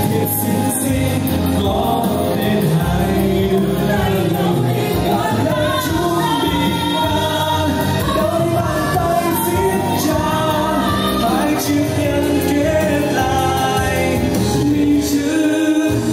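A song: a singing voice over steady instrumental backing.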